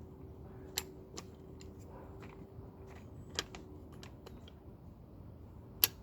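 Three sharp clicks, the loudest near the end, over faint steady background noise with a low hum.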